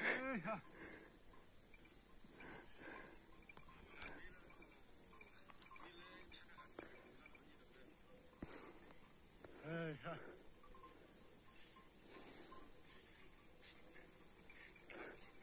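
Steady, faint high-pitched chirring of insects. About ten seconds in, a faint voice calls out once, briefly.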